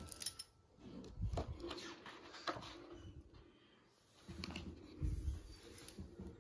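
Stiff pages of a photo album being handled and turned: rustles and crisp clicks, with a dull thump about a second in and another about five seconds in.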